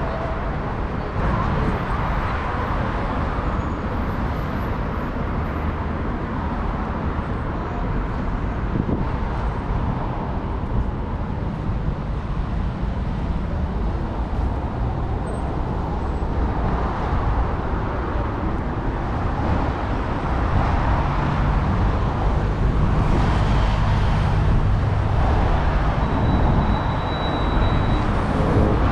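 City street traffic noise: cars running past steadily, with a vehicle's engine drone growing louder in the second half.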